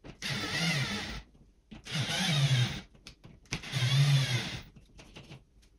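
Cordless screwdriver running in three bursts of about a second each, its motor pitch wavering within each burst.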